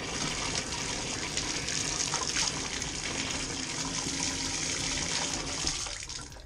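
Water pouring from a Moen tub spout and splashing into the bathtub, a steady rushing hiss, as the tub and shower faucet is run on its newly fitted 1225B cartridge. The level drops off near the end.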